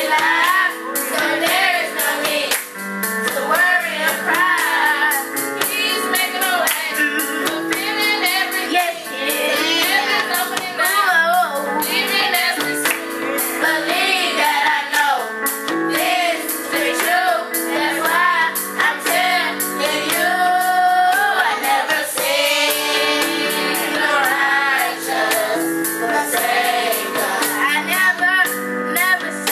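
Youth choir of children and teens singing a gospel song, a woman's voice prominent among them, over held instrumental chords and a steady percussive beat.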